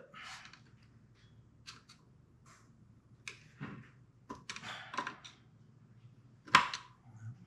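Screwdriver prying and scraping at a sealant-stuck part on a 1939 Ford transmission case: scattered metal clicks and scrapes, with one loud clank about six and a half seconds in.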